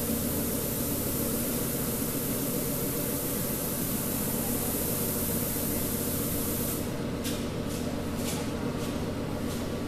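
Paint spray gun hissing steadily, then from about seven seconds in triggered in a string of short bursts. A steady machine hum runs underneath.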